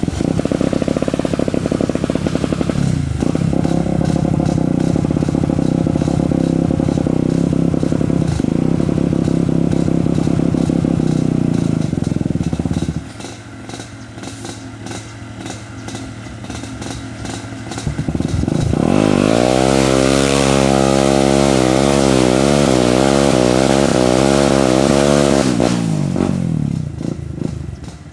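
ATV engine revved hard and held high while the quad is stuck in deep mud, wheels spinning. About halfway through it falls back to a low idle for a few seconds, then revs up again with the pitch wavering up and down, and drops off near the end.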